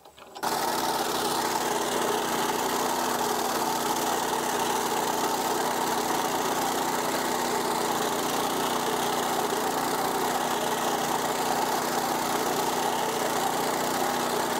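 Small walk-behind two-wheel tractor running steadily while its front-mounted sickle-bar mower cuts grass. The engine sound starts abruptly about half a second in and stays even.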